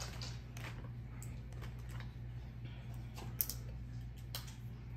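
Scattered light clicks and taps of eating: a plastic fork working at shrimp on a plate and shells being picked at by hand, with one sharper click about three and a half seconds in.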